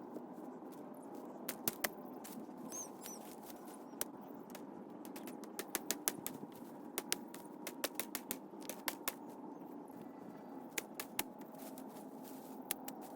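Irregular sharp cracks and knocks of thorny babool branches and twigs being hacked and snapped with an axe while clearing scrub, some coming in quick runs of three or four, over a steady background hiss.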